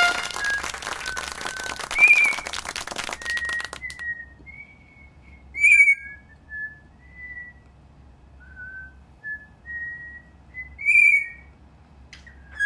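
A cockatiel practising a tune note by note, giving three louder clear whistles with a short rise and fall, about two, six and eleven seconds in. Softer, purer whistled notes of the melody come between them, and a rapid clicking patter runs through the first four seconds.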